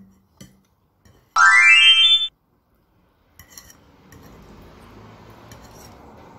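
A loud electronic sound effect about a second in: one tone with a rising pitch, lasting about a second. After it come a few faint clinks, like a fork on a plate, over a faint steady background.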